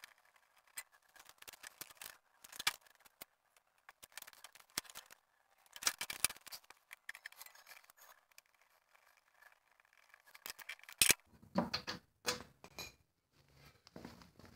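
Faint clicks and scrapes of a hand working the control knobs and levers on a Honda HS35 snowblower's control panel, with a few louder knocks and bumps about eleven seconds in. The engine is not running.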